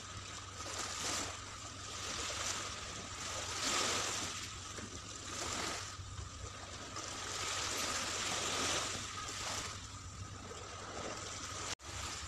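Small waves breaking and washing up a sandy beach, the hiss of the surf swelling and fading every second or two.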